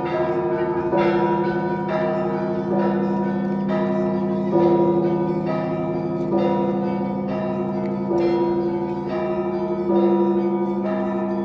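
Russian Orthodox church bells rung in a peal: a heavier bell struck steadily about every two seconds, and smaller bells chiming in a quicker pattern over it, all ringing on.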